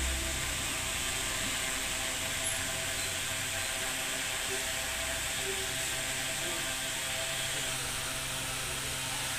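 Steady machine hum and hiss, even throughout with no sudden sounds.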